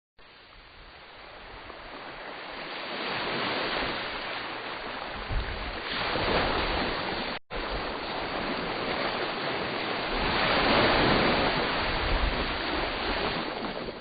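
Ocean surf: a steady rush of waves that builds over the first few seconds and rises and falls in swells, loudest a little before the end. It cuts out for an instant about halfway through.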